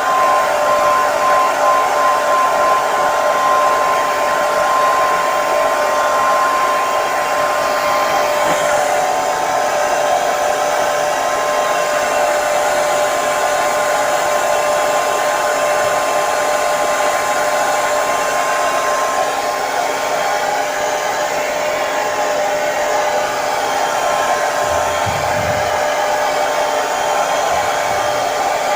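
Hair dryer running continuously: a steady whirring rush of air with a constant motor whine, shifting slightly in tone about eight seconds in.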